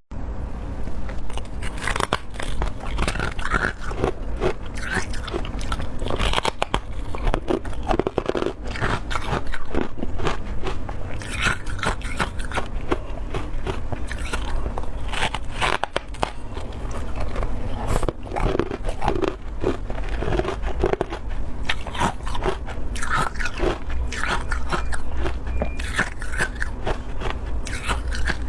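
Close-up biting and chewing of powdery freezer frost: many crisp, irregular crunches in quick succession.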